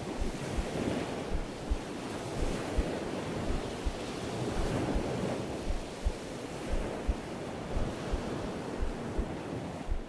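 A slow heartbeat of low thumps, roughly one a second, over the steady wash of distant ocean surf with some wind on the microphone.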